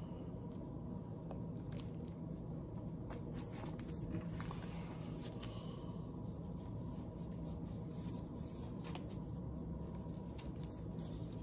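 Faint crinkling and scattered light clicks of glossy paper being handled as a folded poster is opened, over a steady low hum.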